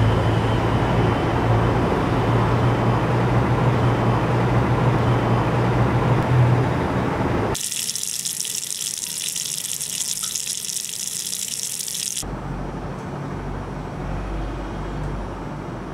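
Water running from a tap into a sink, heard as a high hiss that starts about seven and a half seconds in and cuts off about four seconds later. Before and after it there is a steady rushing noise with a low hum.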